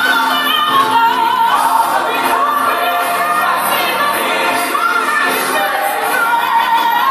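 A song with a sung melody over instrumental backing, playing steadily throughout.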